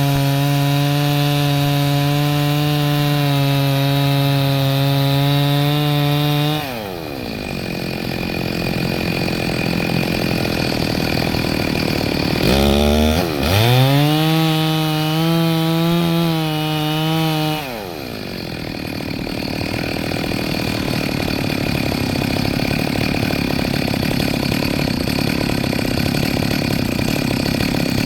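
Two-stroke chainsaw held at full throttle, then the throttle is released and the engine pitch drops away. About twelve seconds in it is revved back up and held for a few seconds before dropping again, and a steady rushing noise fills the stretches between.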